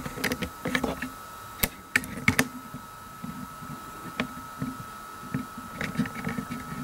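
Irregular light clicks and ticks, a dozen or so at uneven intervals, over a faint steady high-pitched whine.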